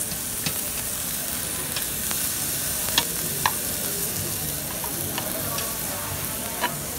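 Beef slices and raw shrimp sizzling steadily on a table-top grill grate over hot coals, with a few short clicks of metal tongs on the grate, the loudest two about three seconds in.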